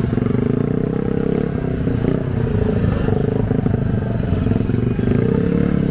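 A motorcycle engine running close by, its fast, even low pulse steady, with slight wavers in pitch.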